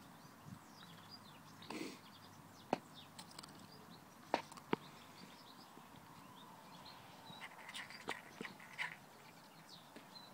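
A deerhound lurcher pup making a few sharp clicks and taps as it moves about on concrete paving, nosing and mouthing eggshell; two of the clicks come in quick succession just before halfway. Birds chirp faintly in the background.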